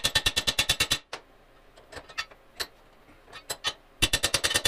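Hammer flattening a cut steel bracket: a quick, even run of strikes, about ten a second, that stops about a second in, a few single knocks, then another quick run starting near the end.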